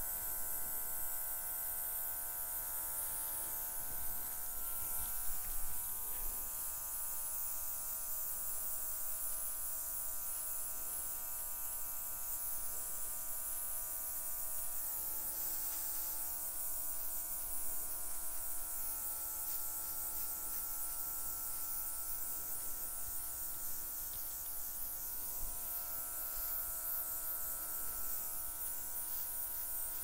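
Small battery-operated airbrush running steadily, its little motor buzzing with a high hiss of air as it blows wet white acrylic paint across a canvas.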